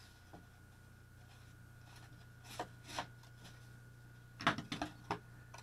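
A couple of short scrapes as a knife shaves away bits of paper-faced foam board, then a quick cluster of light knocks and clatter about four and a half seconds in, as the knife is put down on the wooden workbench.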